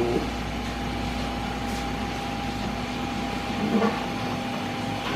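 Steady indoor room tone: a constant mechanical hum with a thin steady whine over a light hiss, with a brief faint murmur of a voice about four seconds in.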